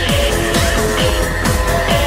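Electronic dance music with a steady kick drum, about two beats a second, under held synthesizer tones.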